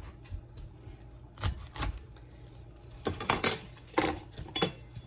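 Kitchen knife cutting the leaves and stems off a head of raw cauliflower: a handful of short, crisp cracks and crunches, loudest about three and a half seconds in.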